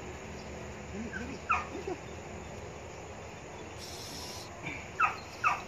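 A dog trapped down a hole whimpering: short cries that fall in pitch, one about a second and a half in and two close together near the end, with a brief rustling burst in between.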